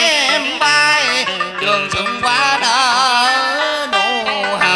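Live music: a melody with wide vibrato and sliding pitches over plucked guitar notes.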